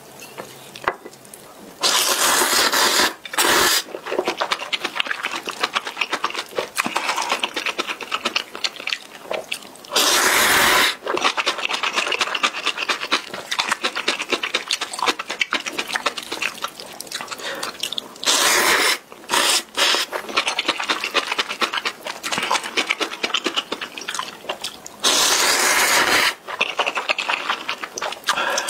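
Close-up mouth sounds of instant ramen noodles being eaten: four loud slurps of noodles, each lasting a second or so and several seconds apart, with steady wet chewing and smacking in between.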